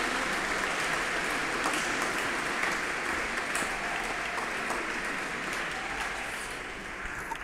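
Audience applauding, slowly dying down toward the end.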